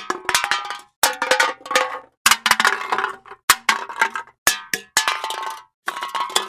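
Metal objects clattering and clanging: about six crashes roughly a second apart, each a quick cluster of hits with ringing metallic tones.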